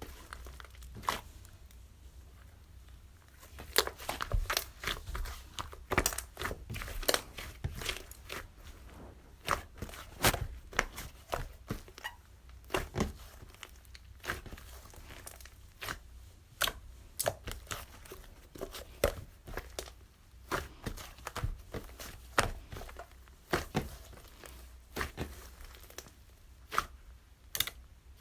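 Paper and tape being handled and worked by hand: irregular crinkling and tearing sounds with scattered sharp ticks, several a second at the busiest moments.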